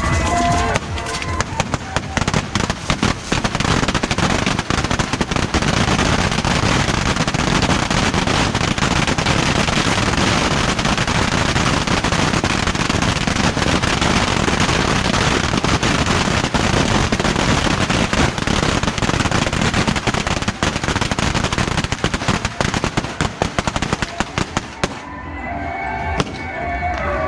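A beehive fireworks barrage: racks of bottle rockets firing all at once in a dense, continuous crackle of hissing launches and sharp bangs. It cuts off suddenly a couple of seconds before the end.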